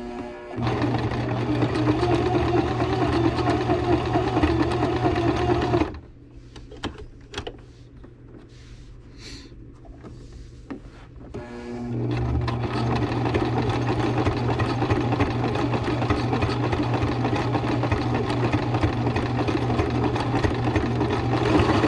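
Electric sewing machine stitching binding down with an appliqué blanket stitch: it runs steadily for about five seconds, stops for about six seconds with a few faint clicks as the work is repositioned, then starts again and keeps running.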